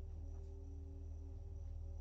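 A quiet, steady low drone with a couple of held tones above it.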